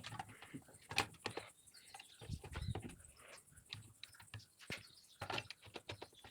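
Faint, irregular clicks and light knocks of a chainsaw being assembled by hand, its chain and metal parts being handled and fitted, with a duller thump about two and a half seconds in.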